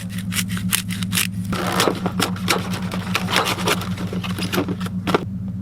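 Seasoning shaken and ground onto food: quick separate clicks, then a dense gritty rattle for about three and a half seconds that stops suddenly, over a steady low engine hum.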